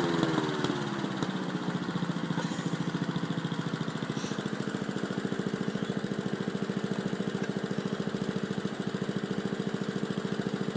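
Petrol lawn mower engine running. Its speed drops over the first second or so, then it settles into a steady, evenly pulsing idle.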